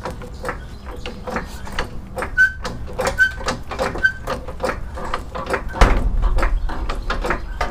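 Hydraulic floor jack being pumped by its long handle to lift a car: a quick run of metallic clicks and creaks, with a short squeak on each stroke, a little under once a second. About two thirds of the way through comes a louder knock, followed by a low rumble.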